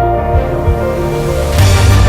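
Background music with steady held tones and a low beat, growing fuller and louder about one and a half seconds in.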